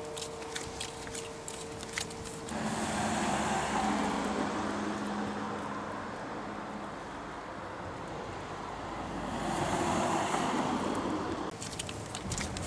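Flip-flops slapping on a paved sidewalk as a few people walk, then several seconds of street traffic with passing cars swelling twice, before the footstep slaps return near the end.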